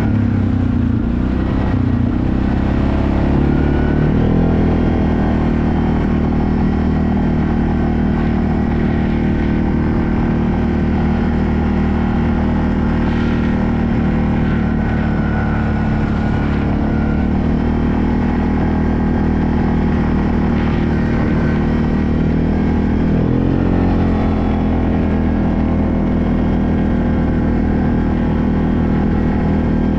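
ATV engine running steadily as the machine is ridden along a trail, its pitch dipping and climbing again at the start and once more some twenty seconds later as the throttle is eased and opened.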